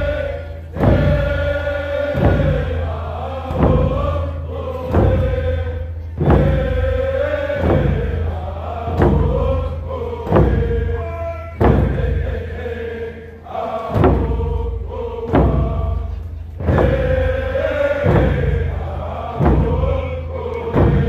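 A group of Tseshaht (Nuu-chah-nulth) singers chanting a song in unison over drums beaten in a steady beat about once a second.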